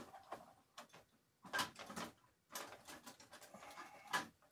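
A few faint, scattered clicks and scrapes of hands working the plastic roof of a Lionel 3665 Minuteman missile launching car, which will not close fully over the missile inside.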